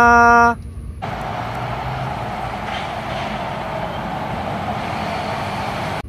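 Bus sound effect: a loud, steady horn-like tone ends about half a second in. Then a steady vehicle running noise with a low rumble starts and cuts off abruptly at the end.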